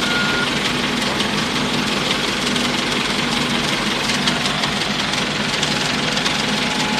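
Diesel engine of a Komatsu PC78 mini excavator running steadily close by, with a fast, even clatter. A reversing beep stops just after the start.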